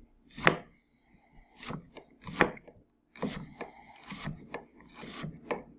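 Chef's knife dicing an onion on a wooden cutting board. A few separate cuts come first, then after about three seconds a quicker run of chopping strokes, about three a second.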